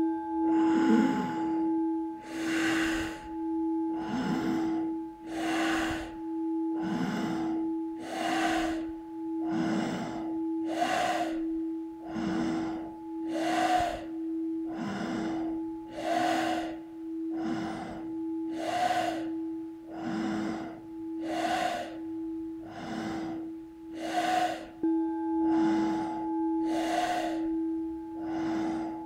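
Rapid, forceful breathing in and out through the nose in an even rhythm, about one stroke a second, as in an intensive nasal breathing exercise. Under it a singing bowl rings with a steady sustained tone that is refreshed and louder about 25 seconds in.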